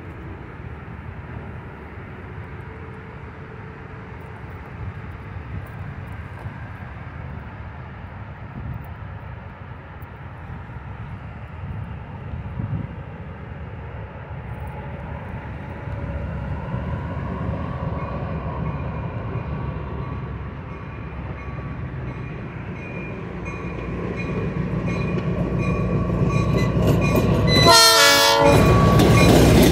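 Diesel locomotive SSRR 2030 approaching with its excursion train, its engine rumble growing steadily louder. Its horn sounds from about halfway through. The locomotive passes close near the end, loud, with wheels on the rails.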